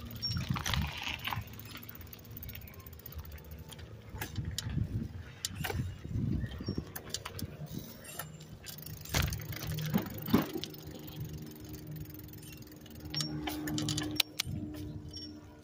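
Bicycle riding over pavement: irregular rattles, clicks and knocks from the bike and the camera, with low rumbles of wind on the microphone. A steady low hum comes in about two-thirds of the way through.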